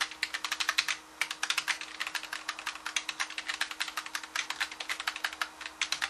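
Computer keyboard keystrokes clicking rapidly and unevenly, several a second, with a brief pause about a second in, as text is edited by selecting spaces and pasting in a code.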